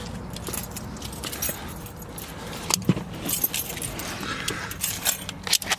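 Car keys jangling, with a few sharp clicks and knocks about three seconds in and again near the end, over a steady low hum.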